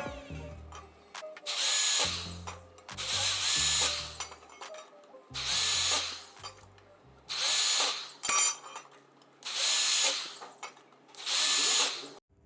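Power drill running in six short bursts of about a second each, its motor spinning up and winding down every time.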